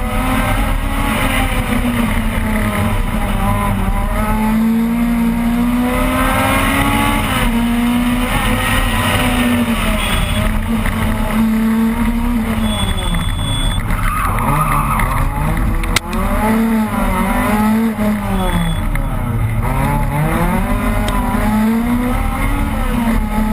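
Opel Kadett rally car engine heard from inside the cabin, held at high revs under hard driving, its pitch shifting with throttle and gear changes. Twice in the second half the revs drop and climb again, as when braking for a corner and accelerating out. A single sharp click about two-thirds of the way through.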